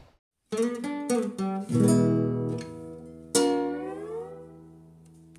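Short guitar jingle: after a brief silence come a few plucked notes and a strummed chord, then a last strummed chord a little past three seconds in that rings out and fades away.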